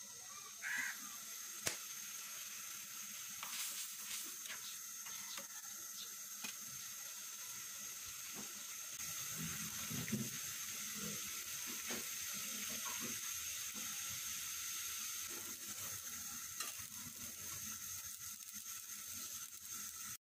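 Pointed gourd and potato curry simmering and sizzling in a wok, with a steady hiss. A metal spatula stirs through it and now and then scrapes or clicks against the pan.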